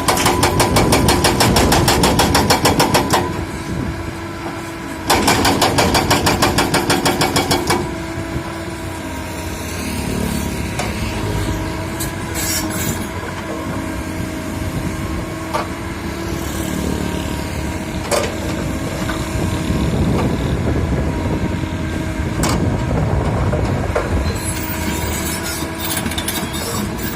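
Excavator diesel engine running with a steady hum, broken by two loud stretches of rapid, even pulsing about three seconds each, at the start and again about five seconds in.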